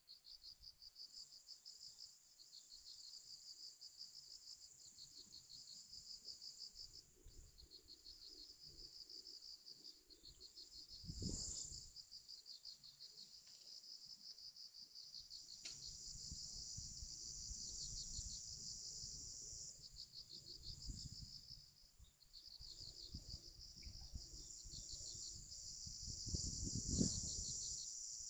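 Insects chirping in a steady, rapidly pulsing high trill. A low rumbling noise comes and goes underneath it, loudest about eleven seconds in and again near the end.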